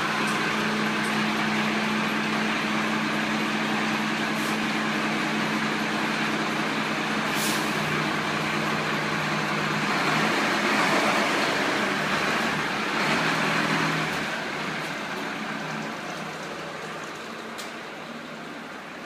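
Rescue truck's diesel engine idling steadily, then revving louder as the truck pulls away about ten seconds in, and fading as it drives off.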